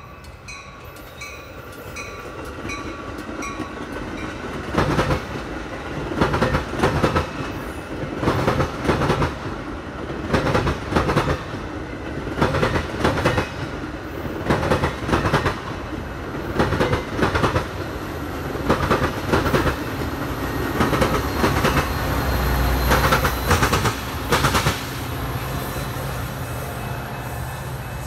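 Metra bilevel commuter train passing close by at speed: its steel wheels click over the rail joints in evenly spaced clusters, about one every two seconds, as each car's trucks go by. A deeper rumble swells near the end.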